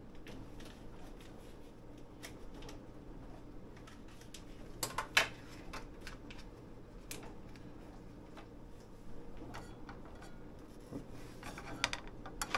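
A low steady hum under scattered light clicks and knocks, with a louder cluster of knocks about five seconds in. Near the end a spoon clinks and scrapes in a nonstick frying pan.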